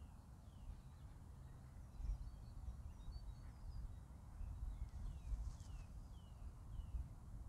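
Songbirds chirping with many short falling notes over a faint, fluctuating low rumble of wind on the microphone.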